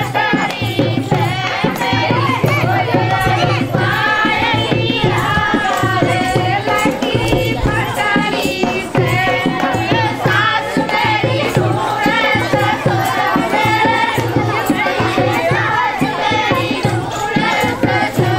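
A group of women singing a Hindi village folk song (dehati geet), accompanied by a dholak drum beating a steady, driving rhythm.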